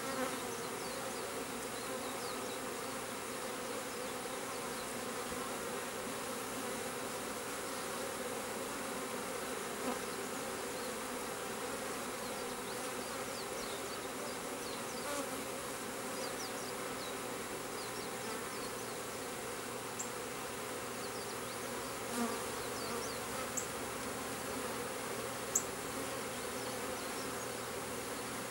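Honeybee swarm buzzing around and into a swarm-trap box, a steady dense hum of many wingbeats. A few brief ticks stand out now and then.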